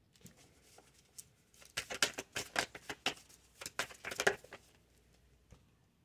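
A tarot deck shuffled by hand: a few light taps of card handling, then rapid flapping of cards in two runs, the first from just under two seconds in and the second around four seconds in.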